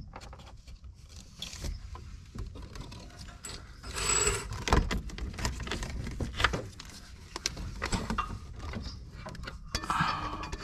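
Irregular clicks, light knocks and rattles of plastic and metal fuel-system fittings being handled and pushed into place under a car, with a louder scraping rub about four seconds in.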